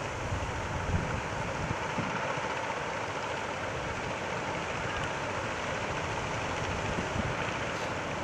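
Steady rush of sea surf at a river mouth, with wind buffeting the microphone in low thumps during the first couple of seconds.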